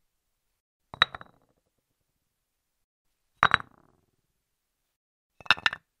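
Hard small objects knocking down onto a stone surface: three separate short clinking impacts, about a second, three and a half and five and a half seconds in, each a quick cluster of two or three hits with a brief ring.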